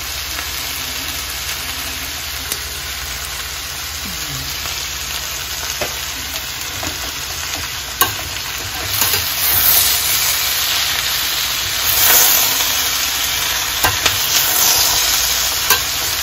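Chopped cabbage sizzling as it stir-fries in a stainless steel pan, turned with a metal spatula that knocks sharply against the pan a few times. The sizzle swells louder in the second half as the cabbage is tossed.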